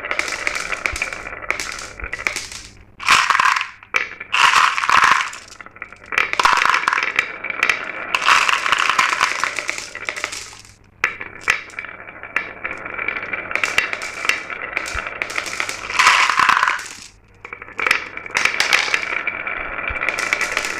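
Glass marbles rolling and clattering down a marble run track: a steady rattle of clicks, with several louder stretches of clacking a second or two long.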